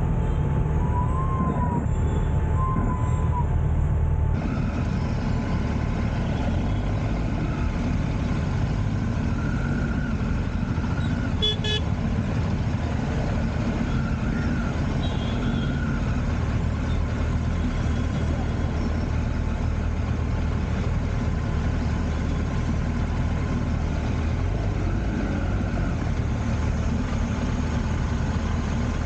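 Dense city traffic heard from a motorcycle: a steady low rumble of engines, with a short horn toot about twelve seconds in and a few fainter honks after it.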